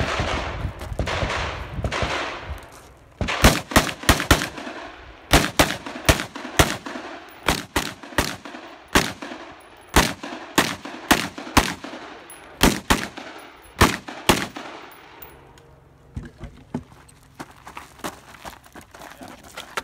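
Pistol fired rapidly on a practical-shooting stage: about thirty sharp shots in quick pairs and strings, starting about three seconds in and stopping near fifteen seconds, with short pauses between strings. A rushing noise fills the first two seconds before the shooting.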